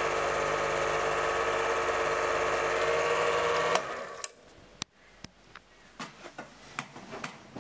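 8mm cine projector running with a steady mechanical clatter, stopping abruptly about four seconds in. Scattered sharp clicks follow.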